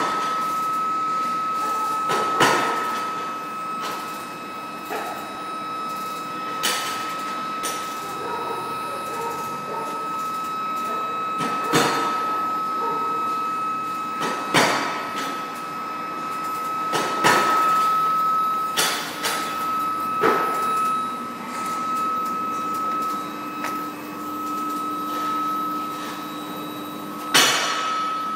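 Flexographic paper cup printing machine running, with a steady high-pitched whine and irregular sharp knocks every few seconds.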